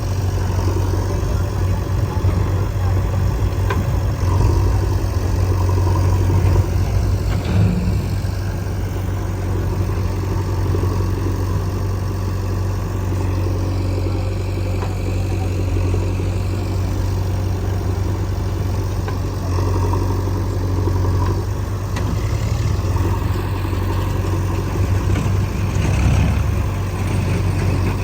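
Diesel engines of a JCB 3DX backhoe loader and a Mahindra 475 DI tractor running together. The engine note swells and eases with changing load, and a few short knocks come through.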